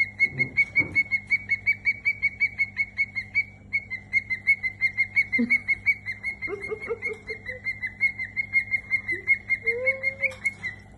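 Cockatiel calling in a rapid, steady run of short, high peeps at one pitch, about five or six a second.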